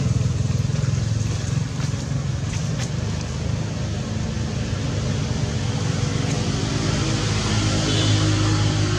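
A motor engine running steadily: a low, continuous hum whose steady tones grow clearer in the second half.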